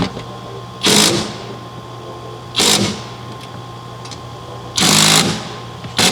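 A hand-held power tool running in short bursts, about five times, each well under a second.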